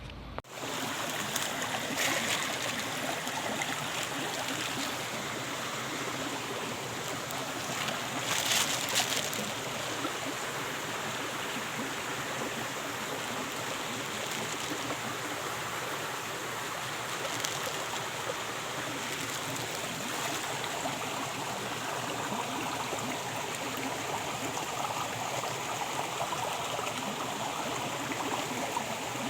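Steady rushing of a stream's running water, briefly louder about nine seconds in.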